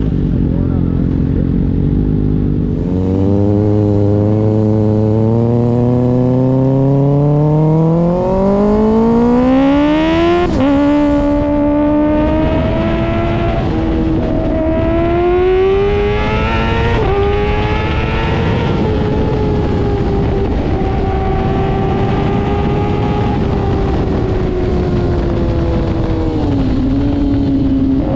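2024 Kawasaki ZX-6R's 636 cc inline-four through an IXIL aftermarket exhaust, revs climbing steadily for several seconds before dropping sharply at an upshift about ten seconds in. The revs then build again and hold nearly steady for a while, with a brief dip and pickup near the end.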